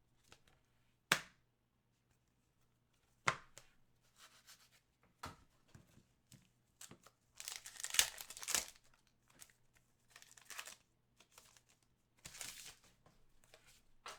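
Foil trading-card packs being torn open by hand, with wrapper crinkling and a few sharp clicks as cards are handled; the longest stretch of tearing and crinkling comes about halfway through.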